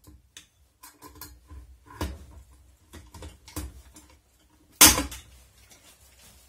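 Hand pop-rivet gun being squeezed repeatedly to set a rivet through a door hinge, with light clicks and knocks from the handles. About five seconds in comes one loud, sharp snap as the rivet's mandrel breaks off.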